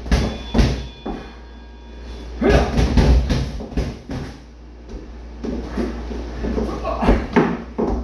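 Boxing gloves punching a free-standing punching bag: sharp thuds and slaps that come in quick bunches, one near the start, a denser run about two and a half seconds in, and another from about five and a half seconds in.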